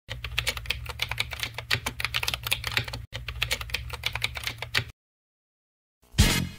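Keyboard typing sound effect, rapid clicks laid under on-screen text being typed out, in two runs with a brief break about three seconds in, stopping about five seconds in. Music with a heavy beat starts near the end.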